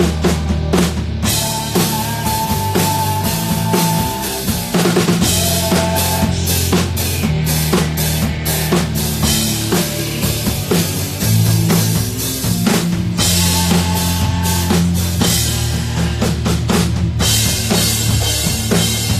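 A rock band playing live: a Stratocaster-style electric guitar and a drum kit, with kick drum and snare hits driving a steady beat under sustained guitar notes.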